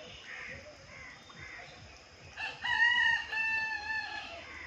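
A rooster crowing once: one long call starting about two and a half seconds in and lasting nearly two seconds, with fainter short calls before it.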